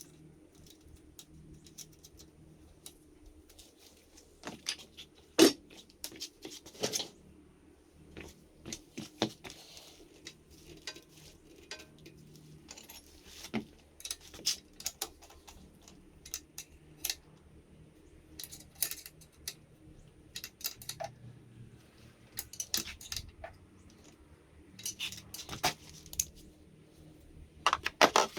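Irregular metallic clinks and knocks of hand tools and exhaust parts being handled during a motorcycle exhaust installation, sharpest about five seconds in and again near the end.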